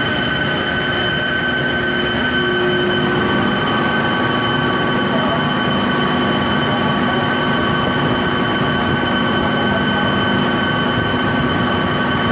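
Steady drone of running chiller-plant machinery, electric motors and pumps, with a constant high whine over a low rumble.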